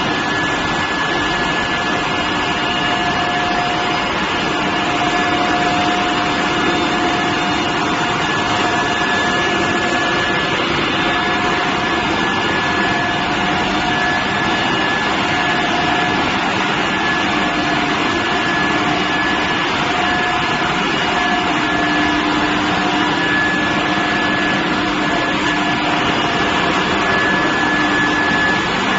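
Induction billet heating furnace running: a steady machine hum and hiss with several constant whining tones over it, one high whine standing out.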